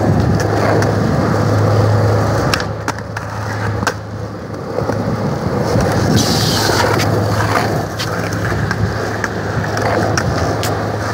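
Skateboard wheels rolling on smooth concrete: a steady rumble with a few sharp clicks.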